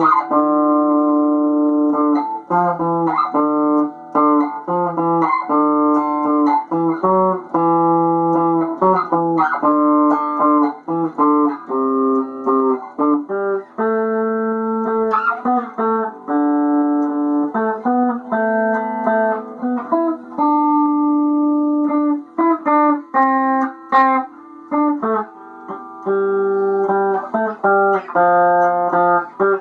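Solo instrumental music: a stringed instrument plucked in a continuous run of single notes and chords, with no singing.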